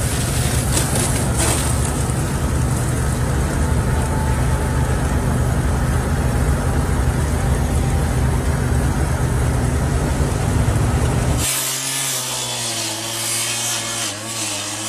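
Gas-powered rescue saw (cut-off saw) running steadily and cutting into a semi-trailer's metal door, a loud continuous drone. About eleven seconds in the sound changes abruptly to a thinner, higher noise with a wavering pitch.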